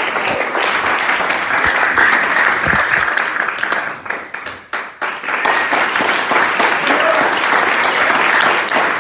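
Audience applauding with many hands clapping, dipping briefly about halfway through before picking up again.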